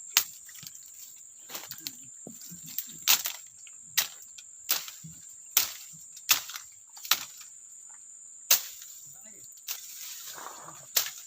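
Insects keep up a steady high-pitched drone. Over it come about a dozen sharp clicks or taps, spaced unevenly, roughly one every half second to a second.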